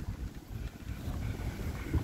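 Wind buffeting the microphone over the low, uneven rumble of a boat trailer being towed slowly across gravel by a pickup truck.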